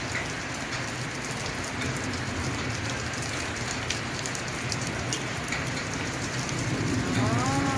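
Steady rain falling on a street and roofs, with many small drip clicks close by. A short rising-and-falling tone sounds just before the end.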